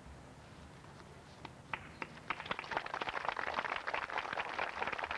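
A few scattered claps, building about two seconds in into steady applause from an outdoor crowd.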